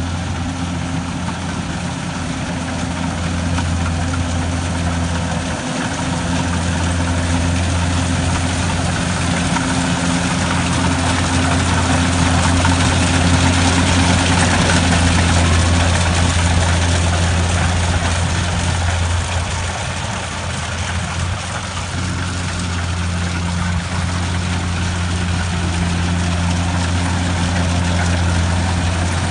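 Kubota DC-70G combine harvester's diesel engine running steadily while the machine cuts and threshes ripe rice: a deep, even engine hum under a broad mechanical rush. It grows louder about halfway through as the machine comes closest.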